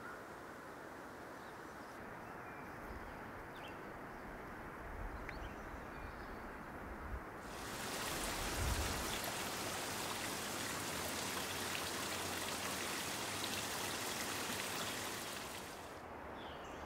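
Steady rushing outdoor ambience with no distinct events, like distant running water; it turns louder and brighter about seven and a half seconds in and drops back a second before the end.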